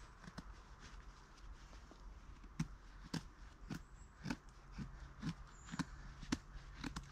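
Knife shaving strokes along a stick, carving a feather stick, about two short strokes a second starting a few seconds in.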